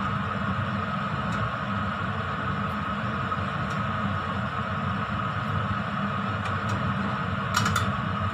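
A steady whirring hum, with a few clinks of a spoon against a steel pot near the end.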